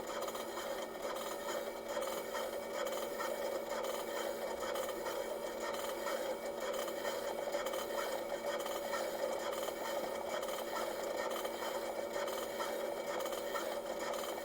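Pick-and-place machine running: a steady hum with many quick, small ticks throughout.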